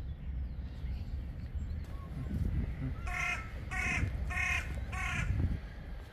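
A crow cawing four times in quick succession, about a second and a half of calls starting about three seconds in, over a steady low rumble.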